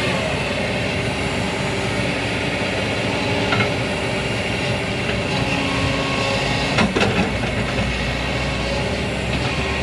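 Excavator running steadily, with two sharp metallic knocks, one about a third of the way in and one about two-thirds in.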